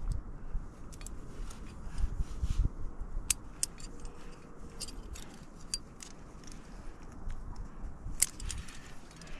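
Metal climbing gear, carabiners and cams hanging from a harness, clinking in scattered light clicks as the climber moves. There are dull low thumps, strongest about two to three seconds in.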